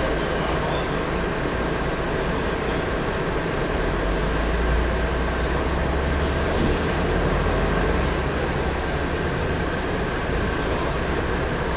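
Volvo B10M bus's mid-mounted straight-six diesel running under way, a steady low rumble that swells for a few seconds in the middle, with a thin steady turbocharger whistle above it.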